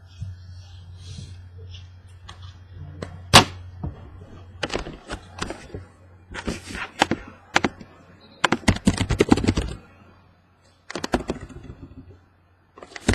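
Computer keyboard typing in short bursts of clicks, with one sharp knock on the desk about three seconds in.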